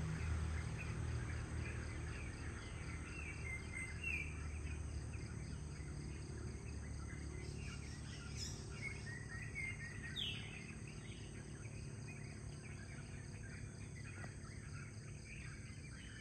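Outdoor ambience of birds chirping with short calls, one louder falling call about ten seconds in, over a steady high-pitched insect drone. A low hum fades away over the first few seconds.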